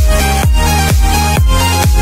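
Background electronic dance music: a steady kick drum about twice a second over a held bass and short synth notes.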